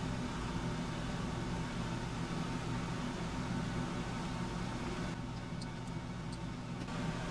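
Steady low hum under even hiss, with a few faint ticks about five and a half to six and a half seconds in.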